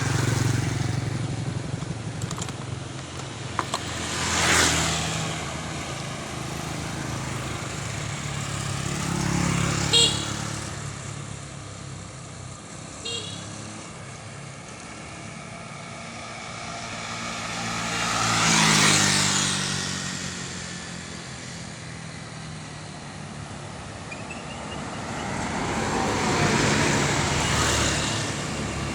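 Large vehicles, buses among them, passing one after another on a road: four loud pass-bys that swell and fade with engine and tyre noise over a steady engine rumble. Short horn toots sound about ten and thirteen seconds in.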